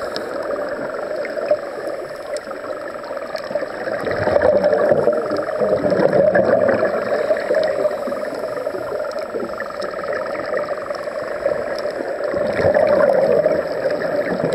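Muffled underwater sound of scuba divers breathing through regulators, their exhaled bubbles gurgling, swelling louder twice.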